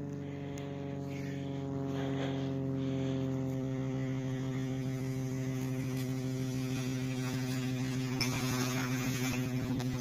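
A steady droning hum holding one pitch, with a brief rush of hiss about eight seconds in.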